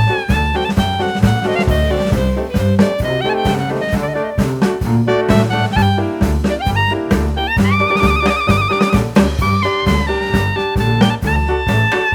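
Swing-style jazz background music, with horns over a steady bass and drum beat. About eight seconds in, a horn holds one long wavering note.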